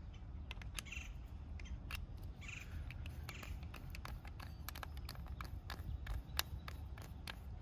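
Irregular small clicks and two short scrapes of brass hose fittings being handled and screwed together on a pressure washer gun, over a low steady rumble.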